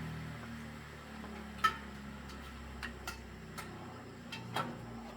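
Scattered sharp clicks and light taps, about seven of them, the loudest about a second and a half in, over a faint low hum that fades away near the end.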